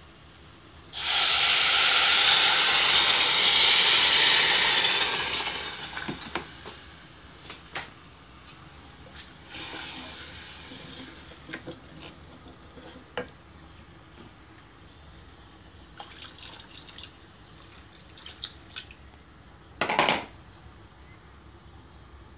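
Water poured from a plastic jug into a hot aluminium pan of rice fried with garlic, a loud rush of water lasting about four seconds and fading away. Afterwards a wooden spoon stirs the rice in the water, with scattered light knocks against the pan and a short louder noise near the end.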